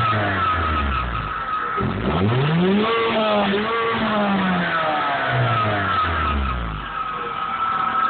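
Nissan Micra K11 engine revved through a Janspeed middle silencer and the original rear box. The revs fall away, climb sharply about two seconds in, hold briefly, then drop back toward idle near the end. A steady high whine runs underneath.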